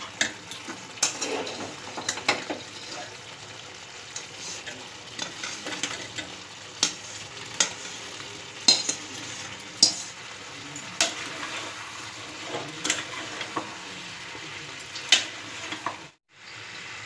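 Boiled potatoes being stirred into a masala frying in a pan, over a steady sizzle. A spatula knocks and scrapes against the pan every second or so. The sound cuts out briefly near the end.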